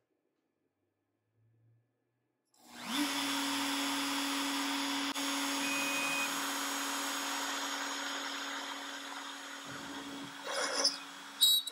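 Makita RT0701C compact router on a Onefinity CNC machine, silent at first. About two and a half seconds in it spins up quickly to a steady high whine and runs on as a 1/8-inch end mill carves into a cedar board. A few short, louder, irregular noises come near the end.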